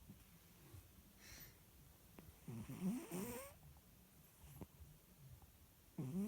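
Domestic cat snoring in its sleep: one snore that rises in pitch around the middle, and the next starting at the end, with a soft breath in between.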